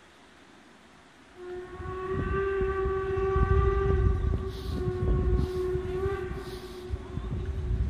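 Steam whistle of the Harz narrow-gauge tank locomotive 99 7247 (DR class 99.23–24, 2-10-2T) blowing one long steady blast that starts about a second and a half in, with a brief dip near the middle, over a low rumble.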